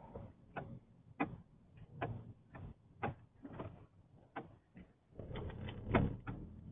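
Irregular clicks and knocks inside a moving car, about two a second over a low road rumble, with a heavier thump about six seconds in.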